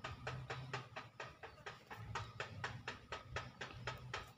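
Spinning fishing reel being cranked to retrieve the line, its mechanism giving an even clicking of about five clicks a second.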